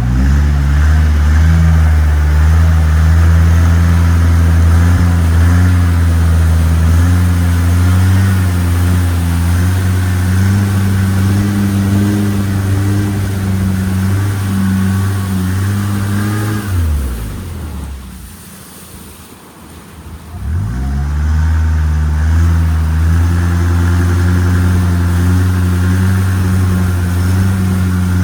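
Boat engine running steadily at speed. About seventeen seconds in it throttles down, its note falling away for a couple of seconds, then it revs back up to its steady running note.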